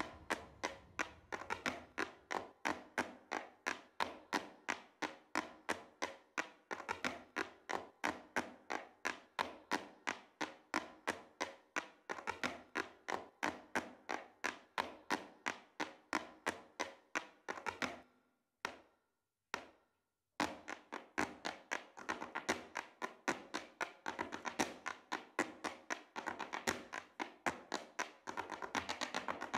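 Irish dance hard shoes striking the stage in unison, a steady beat of about three taps a second, over music. The sound cuts out for about two seconds around two thirds of the way through, and near the end the taps come faster and thicker as the music grows.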